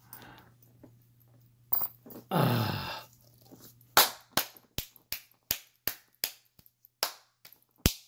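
Small metal parts of a padlock and its key clicking as they are handled: a run of about a dozen sharp clicks, roughly three a second, in the second half, after a loud sigh.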